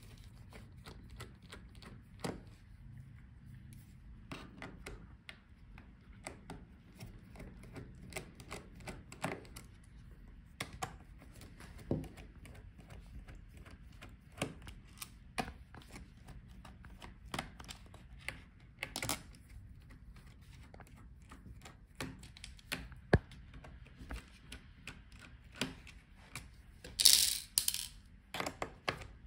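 Small precision screwdriver working the screws out of a laptop's bottom case: scattered light metallic clicks and ticks of the bit in the screw heads and small screws being handled, with a brief louder scrape near the end.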